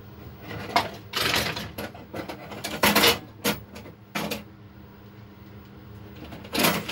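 Handling noises: a string of short clatters and rustles with small metallic clinks, the loudest about three seconds in and another pair near the end.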